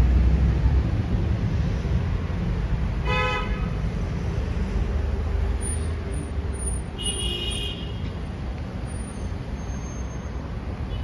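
City street traffic: a steady low rumble of passing cars that slowly grows quieter. A short vehicle horn toots about three seconds in, and a brief higher-pitched tone sounds around seven seconds in.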